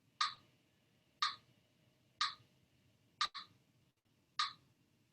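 Metronome ticking steadily about once a second, setting the pace for Kapalabhati breathing. A separate sharp click falls just before one of the ticks, about three seconds in.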